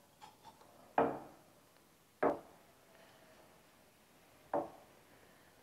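A cup knocking against a stone countertop three times, the first about a second in and the others roughly one and two seconds apart, each knock short and dying away quickly.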